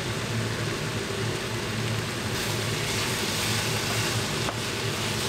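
Minced meat and chopped vegetables frying in a pan with a steady sizzle, which grows brighter and hissier about two seconds in.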